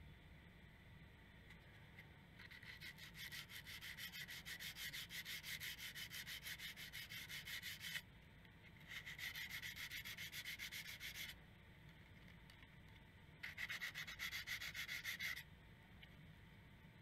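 Sandpaper rubbed by hand on the steel blade of antique shears: quick back-and-forth scratching strokes in three bouts. The first bout starts about two seconds in and is the longest, and two shorter bouts follow.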